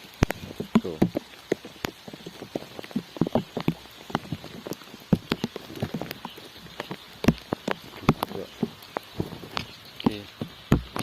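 Rain falling, with many drops tapping sharply and irregularly close to the microphone over a steady hiss.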